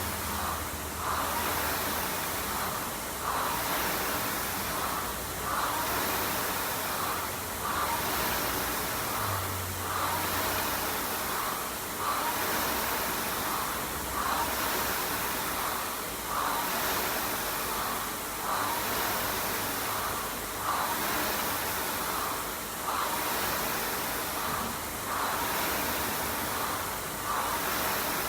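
Air rowing machine's fan flywheel whooshing in a steady rhythm, swelling with each stroke about every two seconds, with heavy breathing.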